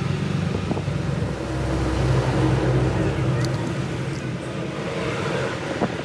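A low engine rumble, swelling to its loudest about two to three seconds in and then easing off.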